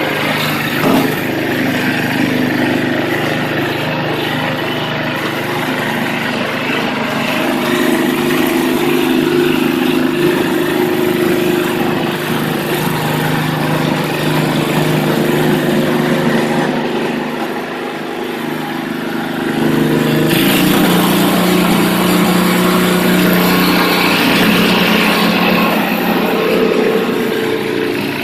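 Craftsman two-stage snowblower's 5 hp Tecumseh single-cylinder engine running steadily. About twenty seconds in the sound shifts and grows louder, with more hiss on top.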